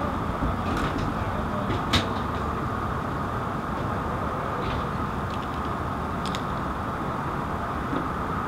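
Steady hum of an idling emergency vehicle's engine, with a few short clicks and knocks on top, the sharpest about two seconds in.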